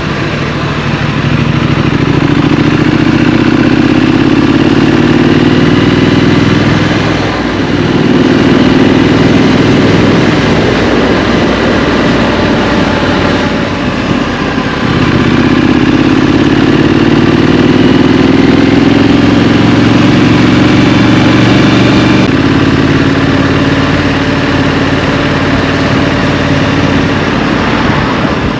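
Scrambler motorcycle engine on the move, rising in pitch under throttle three times, with a sudden drop after each pull, then running steadier near the end.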